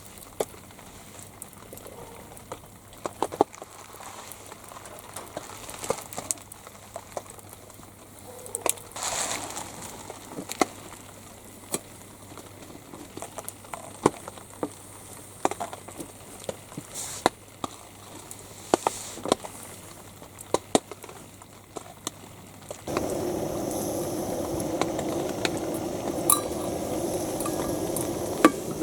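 Scattered light clicks and knocks, like things being handled at a camp table. About 23 s in, a steady, louder watery bubbling and hissing starts suddenly.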